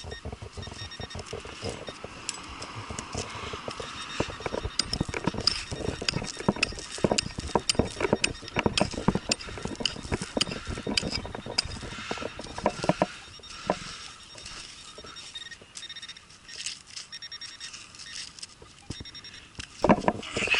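A hand digging tool chopping and scraping into hard, stony soil, with many quick knocks and gritty scrapes, to dig out a buried penny. Faint short beeps come and go in the background.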